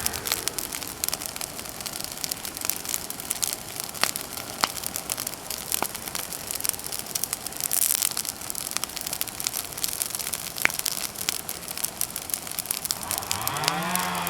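Bonfire of cut persimmon wood crackling, with irregular sharp pops and snaps over a steady hiss. Near the end a sound rising in pitch comes in.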